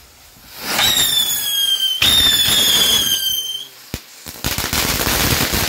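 Ground-spinner firework flowers with a whistle (scream) effect: a rush of hiss, then two long, high whistles one after the other, each sliding slightly down in pitch. After them comes a stretch of crackling, sputtering hiss.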